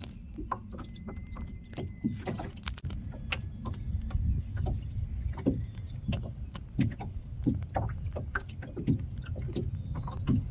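Water sloshing around a small boat, with a steady low rumble and many irregular knocks and clicks.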